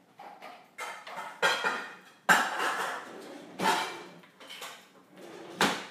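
Dishes and bowls clattering and clinking, a series of separate knocks with the loudest about two seconds in, as a glass mixing bowl is fetched.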